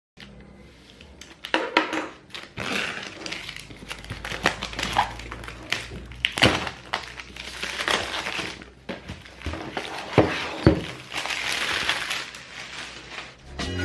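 Gimbal box packaging being opened and handled: irregular crinkling and rustling with scattered light knocks and clicks.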